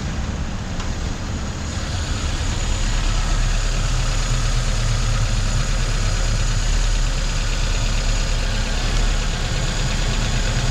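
1996 Toyota Corolla's 1.8-litre 7A-FE four-cylinder engine idling with a hard misfire on cylinder 1, caused by a bad spark plug wire arcing to ground. It gets a little louder about two seconds in.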